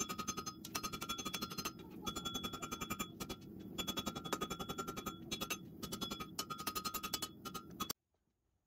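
Hand hammer striking a red-hot steel katana blank on a JHM anvil while forging the blade: rapid blows in short runs with a metallic ring, cutting off abruptly about a second before the end.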